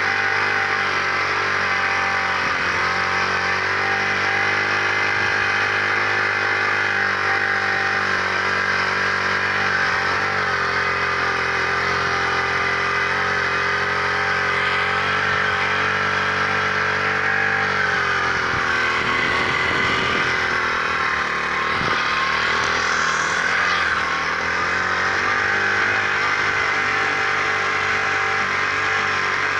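Small single-cylinder motorbike engine running steadily while the bike is ridden, its note dipping and picking up again about two-thirds of the way through.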